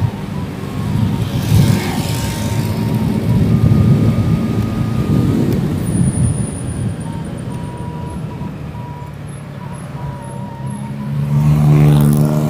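Motorcycle engine running on the road with traffic noise around it. A noisy swell comes about a second and a half in, and the engine revs up near the end.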